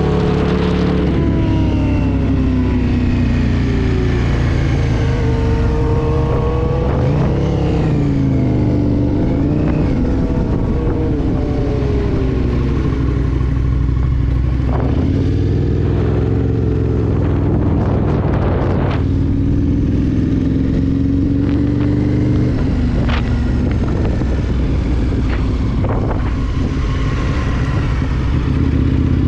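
Aprilia Tuono 1000 V-twin motorcycle engine at track speed, its pitch rising and falling again and again as it is revved out and shifted through the gears, over a steady rush of wind.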